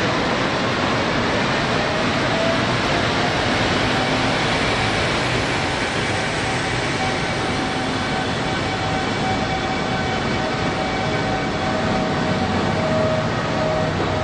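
A locomotive-hauled sleeper express rolling out of a station and picking up speed. The train runs with a steady rolling rumble and a faint whine that rises in pitch over the first few seconds, then holds steady.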